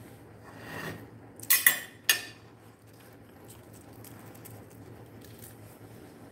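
Cutlery clattering against a dinner plate: a quick cluster of sharp clinks about a second and a half in and one more at about two seconds, over a faint low hum.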